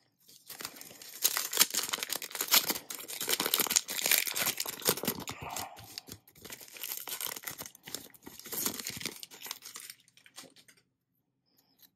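Foil wrapper of an Upper Deck Marvel Annual trading-card pack being torn open and crinkled, a dense crackling that stops about ten seconds in.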